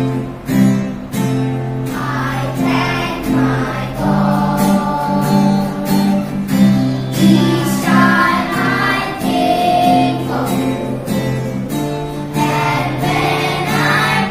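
A group of children singing a song together, in unison, over an instrumental accompaniment with a steady beat; the music starts suddenly right at the beginning.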